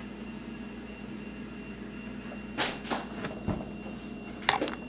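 A person drawing on a sub-ohm vape and blowing out a large cloud. A steady low hum runs under it, and in the second half come several short breathy puffs and handling knocks, including one low thump.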